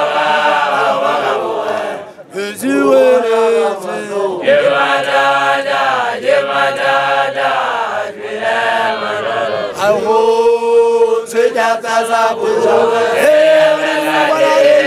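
A group of voices singing a chant together in long phrases. The singing breaks off briefly about two seconds in, then goes on.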